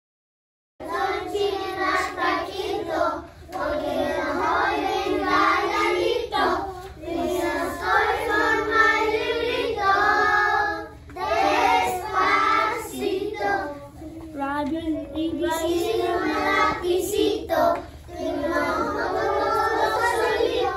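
A group of young children singing together, with some hand clapping, starting about a second in.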